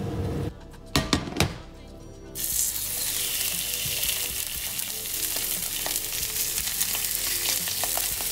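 Guinea fowl suprêmes searing in hot olive oil in a cast-iron frying pan. A few sharp clicks come about a second in, then steady sizzling with small crackles starts about two and a half seconds in.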